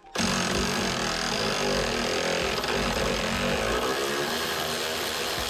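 Power tool starts abruptly and runs steadily under load, spinning off the sway bar link nut on the front suspension, which comes free easily.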